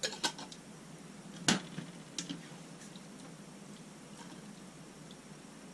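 A handful of sharp clicks and knocks of a jar and utensil against a skillet as jarred mushrooms are shaken into the sauce, the loudest knock about a second and a half in. Faint light ticks of stirring follow.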